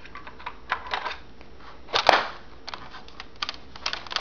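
Plastic clicks and rattles from a Buzz Bee Double Shot foam-dart blaster being handled as its shells are ejected and reloaded, with one louder snap about two seconds in.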